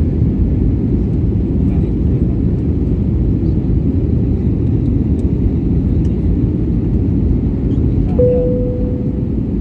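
Airliner cabin noise on the approach: the steady, low rush of the engines and airflow heard from inside the cabin. Near the end a single steady tone comes in and holds for over a second.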